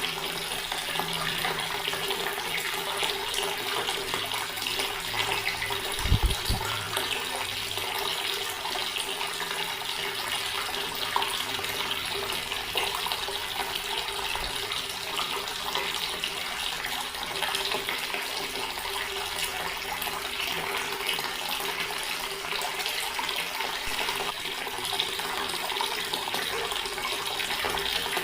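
Water running steadily from a tap into a stone basin, an even splashing flow. A brief low thump about six seconds in.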